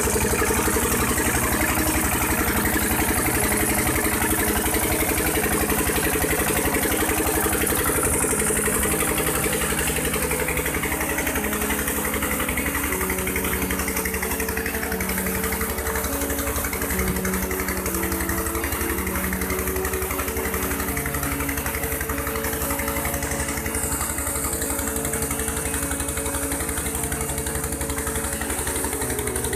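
FARA SD1148 diesel engine running steadily under load, driving a 12-inch tube well pump, with a fast, even firing beat. Water gushing from the pump's outlet pipe adds a hiss.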